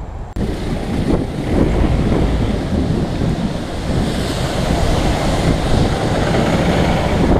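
Wind buffeting the microphone of a camera riding along on a moving bicycle: a steady, rushing rumble that cuts in abruptly just after the start.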